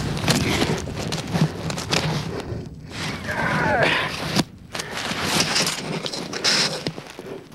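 Snow from an avalanche rushing and buffeting over a skier's camcorder microphone, a harsh rushing noise in uneven surges. A short, high, wavering cry comes about three seconds in, and the noise drops much quieter at about four and a half seconds.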